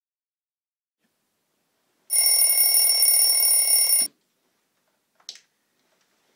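A bell rings loudly and steadily for about two seconds, starting about two seconds in and cutting off suddenly. A single short click follows about a second later.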